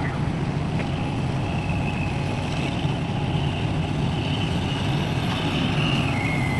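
Heavy construction machinery engine running steadily with a low rumble, and a high whine that comes in about a second and a half in, wavers, then drops to a lower steady tone near the end.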